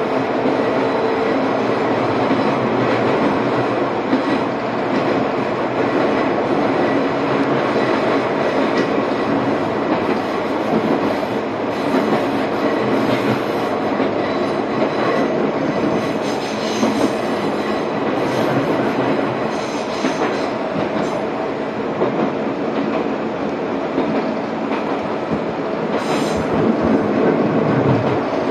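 Izuhakone Railway Sunzu Line electric train running steadily, heard from inside its cab: continuous noise of the wheels on the rails and the car body in motion.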